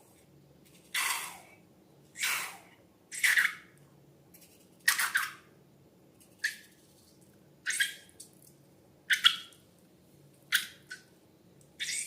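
Slime being squeezed and squished by hand: about nine short, wet squelches, a little over a second apart.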